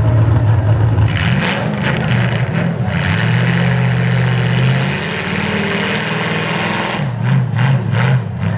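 Demolition derby trucks' engines running and revving in a mud arena, with a loud rushing noise from about one to seven seconds in.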